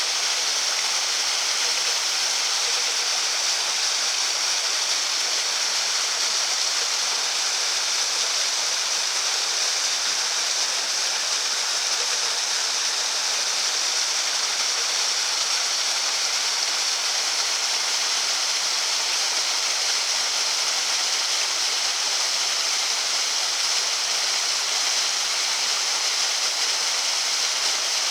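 Small waterfall on a mountain stream: water falling and splashing in a steady, even rush with no change.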